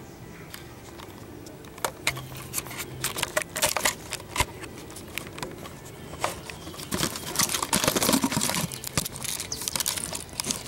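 Dry leaves and twigs crackling and rustling at close range: scattered sharp crackles that thicken into a dense patch about seven to nine seconds in.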